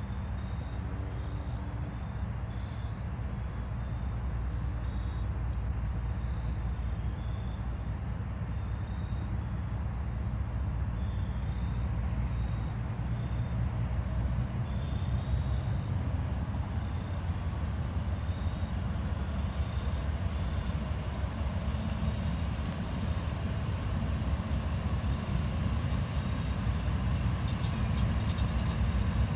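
Two Norfolk Southern diesel freight locomotives approaching at low speed, their engines making a steady low rumble that grows gradually louder as they draw near.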